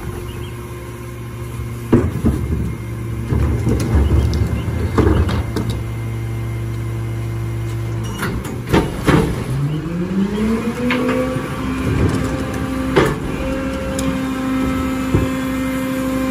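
Mack LR rear-load garbage truck with a Leach Alpha III body: the diesel idles with a steady hum while carts and metal knock and bang at the hopper. About nine seconds in, the engine speeds up and the pitch rises, then holds steady at the higher note while the packer's hydraulics run.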